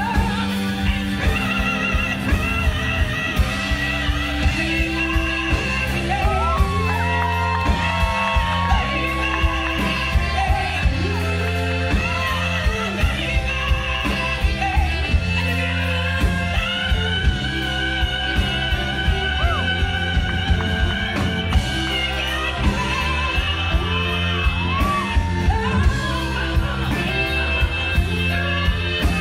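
Live band performance: a female lead singer belting a song over electric guitar and a steady drum beat.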